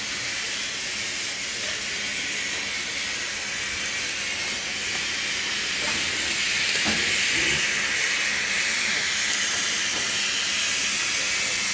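Small steam locomotive hissing steadily as steam vents low around its cylinders, getting louder about halfway through.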